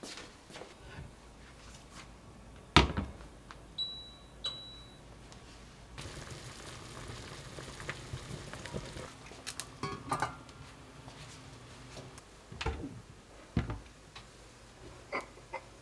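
Kitchen sounds: a sharp knock, then two short electronic appliance beeps. After that comes a steady bubbling of a pot of broth boiling, with a wooden spoon stirring and light clinks. A couple of dull knocks come near the end.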